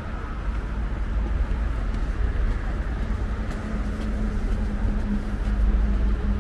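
City street traffic: a steady low rumble of passing vehicles, with a steady low engine hum joining about two seconds in.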